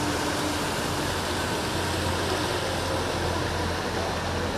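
Steady wash of water and traffic noise from a flooded street, with a motorised rickshaw wading through the floodwater.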